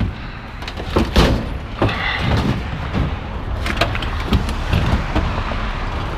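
A heavy stainless-steel commercial coffee machine being flipped and shifted by hand: a string of knocks and thuds over steady scraping and rumbling.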